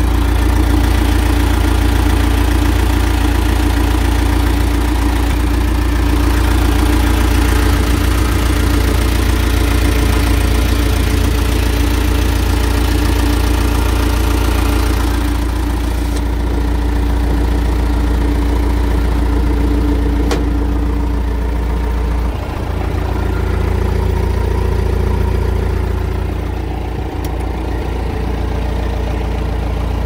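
1987 John Deere 310SE backhoe loader's diesel engine idling steadily, heard close to the open engine compartment. The sound turns duller about halfway through.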